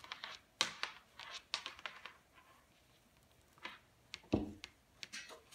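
Light clicks and rustles of a camcorder power adapter cord and plug being handled, with one louder thump about four and a half seconds in.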